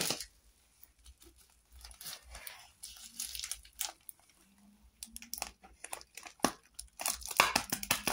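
White plastic mailing bag of a courier parcel crinkling and rustling as it is handled and turned over, in short bouts with a few sharp crackles, the busiest near the end.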